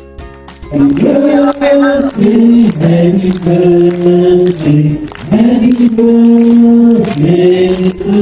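A crowd of voices singing a birthday song together, starting loud about a second in after a brief quiet chime-like jingle, with long held notes stepping up and down and hand-clapping along.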